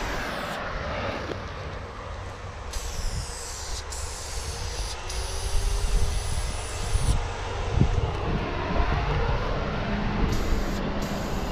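Aerosol spray paint can hissing in several sharp-edged bursts, each a second or more, as lines are sprayed, over a continuous low rumble.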